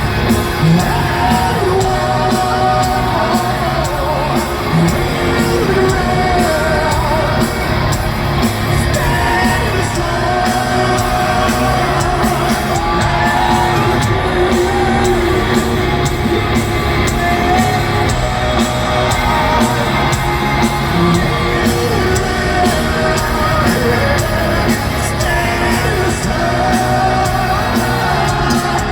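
A heavy metal band playing live at full volume: distorted electric guitars, driving drums and sung vocals, with crowd yells in a large echoing arena.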